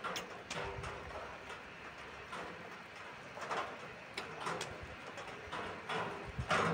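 Mouth sounds of someone eating ripe jackfruit bulbs: irregular chewing, sucking and lip smacks, with small clicks of handling the fruit, busier near the end.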